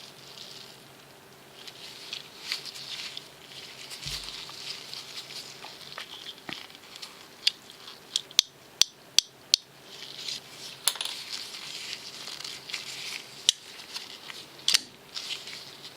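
A Brous Bionic flipper folder's blade being flipped open and closed to test its freshly adjusted pivot, giving sharp metallic clicks. About six come in quick succession around the middle and a few more follow later, over rustling handling noise.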